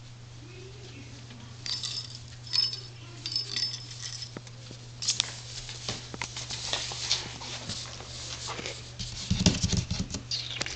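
Tiny Yorkshire terrier puppy moving about on a blanket in a box: rustling, scratching and light tapping, with a few short high squeaks about two seconds in and some low thumps near the end, over a steady low hum.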